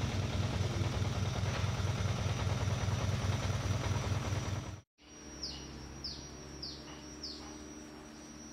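Low, evenly pulsing rumble of a vehicle's engine, which breaks off suddenly about five seconds in. It is followed by quieter outdoor air, where a bird gives four short falling chirps about half a second apart over a faint steady high whine.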